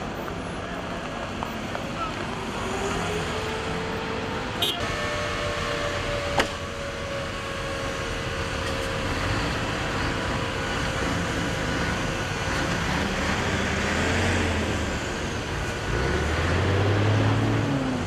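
Fire trucks' engines running along a roadside under a steady wash of noise, with a low engine rumble swelling near the end. Two sharp cracks about four and a half and six and a half seconds in.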